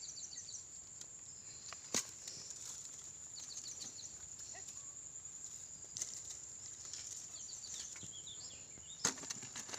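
Rustling and brushing of dry reeds and grass as someone moves and handles things in them, with sharp clicks or snaps about two seconds in and again near the end. A steady high insect buzz and short runs of quick chirps run underneath.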